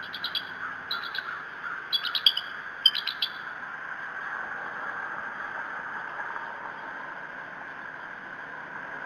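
Adult bald eagle chattering in alarm at an intruding eagle: several quick bursts of short, high, piping calls over the first three seconds or so, then only a steady background hiss.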